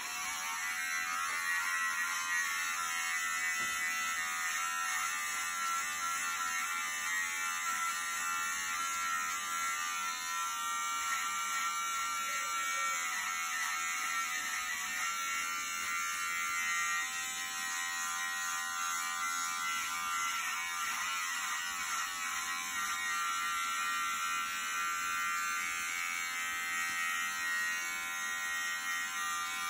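Electric beard trimmer buzzing steadily as it cuts hair above the ear, worked in upward and downward strokes.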